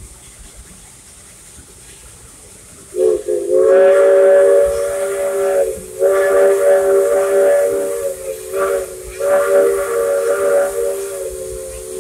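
Steam locomotive's chime whistle sounding a chord of several notes in two long blasts, a short one and a long one, the long-long-short-long signal for a grade crossing.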